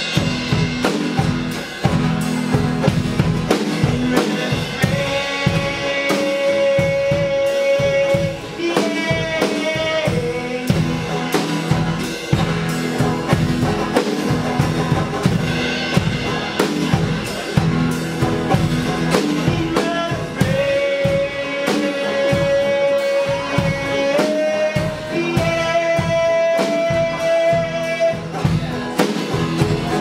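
Folk-punk band playing live: a drum kit beats steadily under strummed acoustic and electric guitars. A melody line holds long notes over the top in two stretches.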